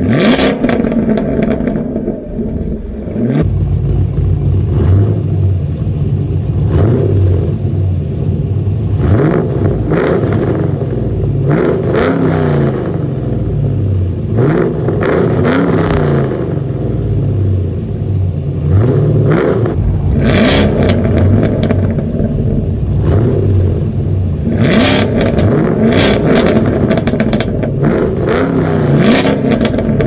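Camaro SS V8 exhaust being revved. Briefly at the start it is the 2016 Camaro SS's 6.2 L LT1 through GM's dual mode exhaust. From about three seconds in it is the 2002 Camaro SS's 5.7 L LS1 through a Speed Engineering true dual exhaust, its revs rising and falling again and again above a loud idle.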